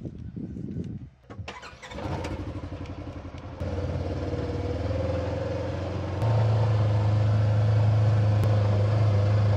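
A vehicle engine starts about a second and a half in and runs steadily, stepping up in speed and loudness twice, near four and six seconds in, as it pulls away and gets going.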